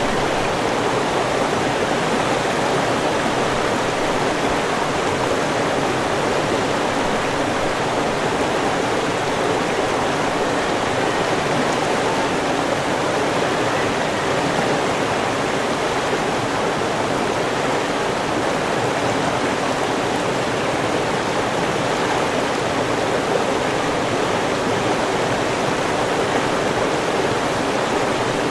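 River water rushing and splashing over rocks: a steady, even flow with no breaks.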